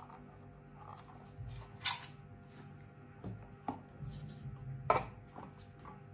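Small cardboard box and clear plastic packaging handled on a tabletop: a few short crinkles and taps, the two loudest about two and five seconds in, over a faint steady hum.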